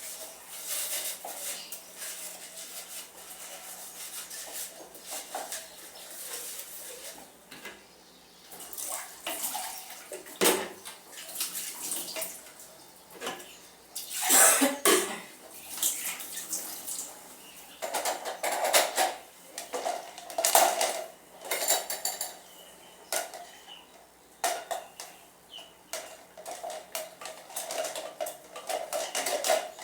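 Dishes and metal cutlery clinking and clattering irregularly as they are washed by hand without running water, with a louder clatter about ten seconds in and again around fourteen to fifteen seconds.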